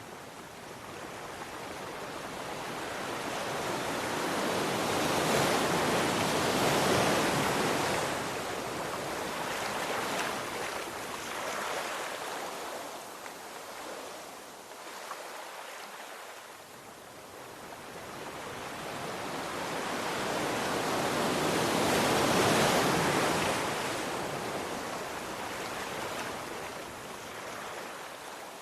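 Sea waves rolling in and washing back, in two slow swells that each build for several seconds and then fade, the first peaking about a quarter of the way through and the second about three quarters of the way through.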